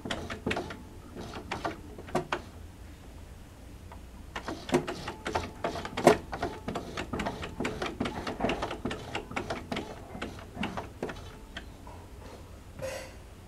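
Jaguar 592 portable sewing machine's needle bar mechanism clicking and ticking irregularly as the freshly oiled needle bar is worked up and down, with the sharpest click about six seconds in.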